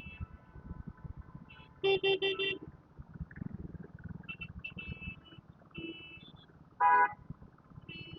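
Vehicle horns honking in a traffic jam over a low rumble of engines: a loud horn sounds four quick toots about two seconds in, another loud blast comes near seven seconds, and short high-pitched beeps of smaller horns come and go throughout.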